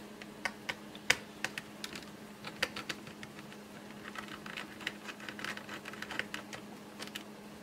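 Small, irregular clicks and taps of a screwdriver working screws and handling the plastic case of an HP 625 laptop during disassembly. A faint steady hum lies underneath.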